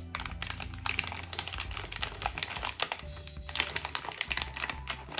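Paper and packaging being handled, a rapid run of small clicks and crinkles, over background music with a steady low bass.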